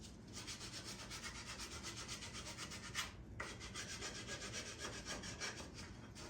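Hand sanding with sandpaper, rubbed back and forth in quick, even strokes, with a short break and a click about halfway through.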